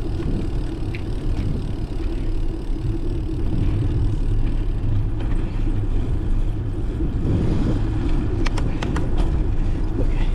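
Steady low rumble of wind and road noise while cycling along a road, with a few sharp clicks a little over eight seconds in.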